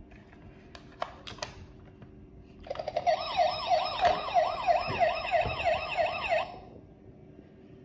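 A few plastic clicks, then the toy rescue helicopter's electronic siren sound effect: a rapid wail sweeping up and down about three times a second with a thin warbling tone above it. It runs for about four seconds and cuts off.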